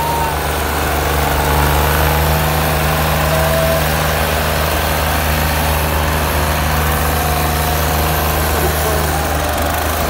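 Diesel engines of a Swaraj 735 and an HMT tractor running flat out under heavy load, chained back to back in a tug-of-war and pulling against each other. A loud, steady low drone that holds without a break.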